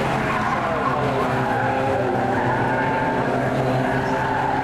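A pack of Mazda MX-5 race cars passing close together, their four-cylinder engines running steadily at high revs.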